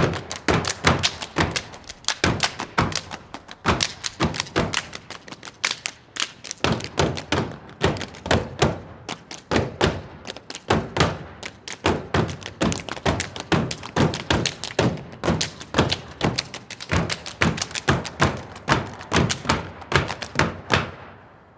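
A step team stomping and clapping in unison on wooden steps: fast, sharp rhythmic beats in changing patterns with short breaks between phrases, stopping about a second before the end.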